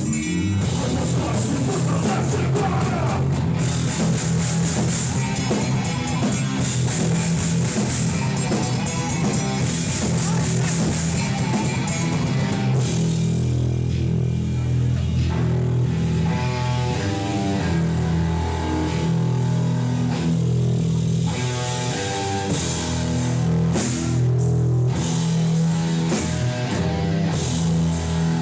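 Live hardcore band playing loud: distorted electric guitars, bass and drum kit.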